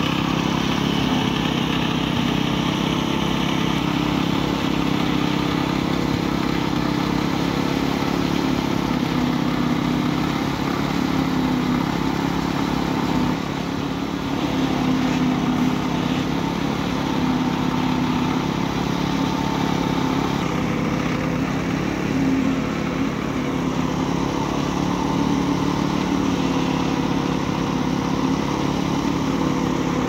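Engines of concrete-pouring machinery running steadily, without a break, as concrete is placed on a slab: a loud, even engine drone.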